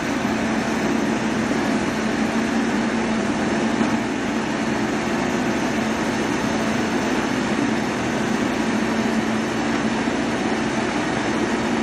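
Volvo crawler excavator's diesel engine running at steady revs, a constant low drone with hiss, while it works under load to pull an overturned dump truck upright.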